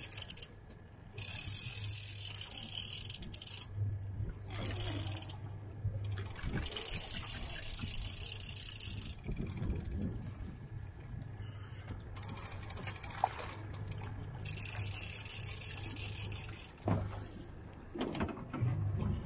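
Fishing reel clicking in three bursts of a few seconds each while a hooked fish is fought and reeled in, over a steady low hum.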